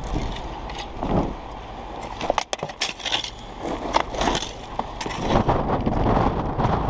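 Irregular knocks, scrapes and clatter of hard objects, with a cluster of sharp knocks a little over two seconds in, over a steady low rumble.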